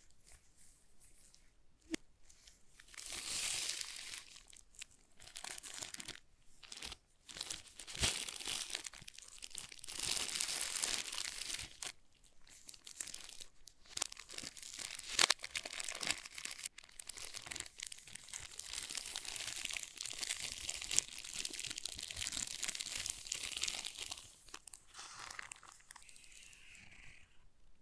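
Packaging being handled: crinkling, rustling and tearing, with short pauses. A single sharp click comes about two seconds in, and the handling fades to lighter sounds near the end.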